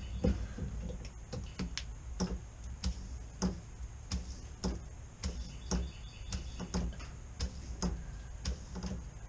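Rubber primer bulb on an outboard fuel line being squeezed over and over, a short click a little under two times a second, pumping fuel up into a newly fitted Marpac clear-bowl fuel filter to fill it.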